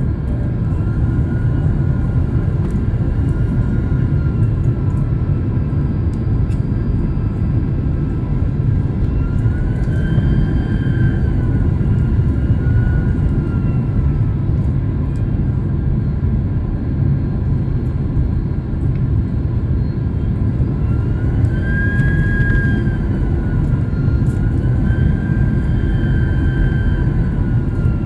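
Airliner cabin noise in flight: a steady low rush of jet engines and airflow, with a thin engine whine that rises and falls in pitch several times as the thrust changes.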